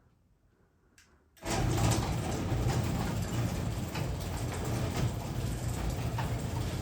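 A click, then a Craftsman 3/4-horsepower garage door opener starts up about a second and a half in and runs steadily, with a strong low hum, driving a heavy sectional door.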